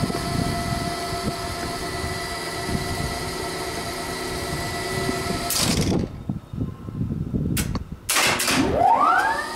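Steady machine hum with several high whining tones. About six seconds in, the hum drops out amid a few knocks and rustles, then a whine rises in pitch over about a second and settles back into the steady hum.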